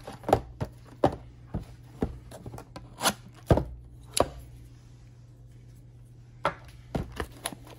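Irregular sharp taps and knocks, about a dozen, from a cardboard trading-card blaster box being handled by hand on a wooden tabletop, bunched in the first few seconds and again near the end. A steady low hum runs underneath.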